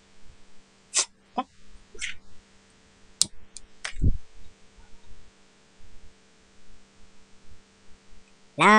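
A few scattered short clicks and soft hisses, with one low thump about four seconds in, from handling and movement close to a webcam microphone. Near the end, music starts loudly on a held high note.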